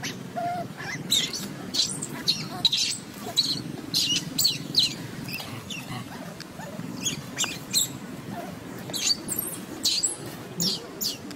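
Many short, high-pitched chirps and squeaks, each sweeping downward, coming in quick clusters of several at a time over a steady low background hum.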